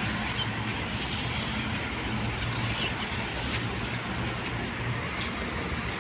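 Steady low hum of idling vehicle engines over a constant wash of traffic noise.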